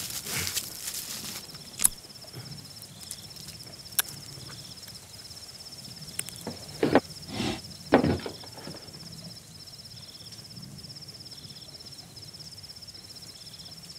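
Crickets chirping in a steady, rapidly pulsing trill that breaks off now and then, with a few light knocks and movement sounds, including two heavier thuds about halfway through.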